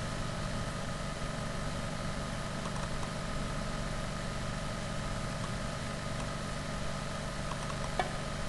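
A steady low hum with hiss and a few faint held tones, with no beat, and a faint click near the end.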